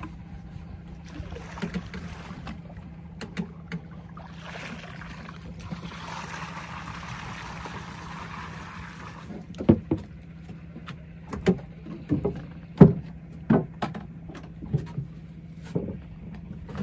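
A boat's engine idling with a steady low hum, while water is sloshed through a small hand sampling net over the side in two rushes. In the second half comes a run of sharp knocks, the loudest about two-thirds of the way in.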